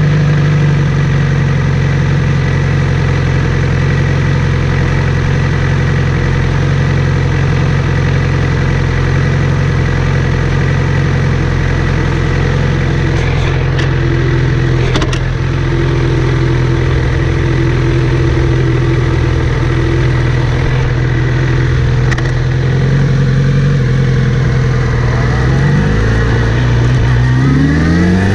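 Kawasaki Z900RS inline-four engine running steadily with a buzzing whir, rising in speed near the end. The owner places the whir at the front sprocket area and notices it after cleaning and relubing the chain, with chain tension checked as OK.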